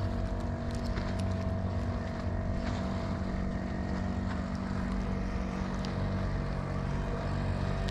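A motorboat engine running at a steady pitch, with a few faint clicks over it.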